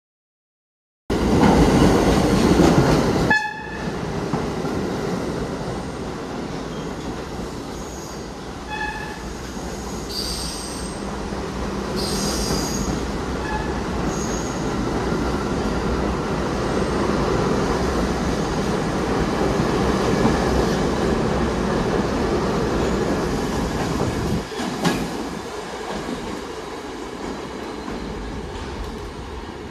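New York City subway train running along a station platform: a steady rumble of steel wheels on rail, with brief high wheel squeals now and then.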